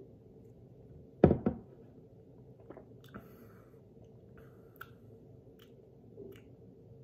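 Two quick thumps close together about a second in, then a few faint clicks and small smacks while the beer is being tasted.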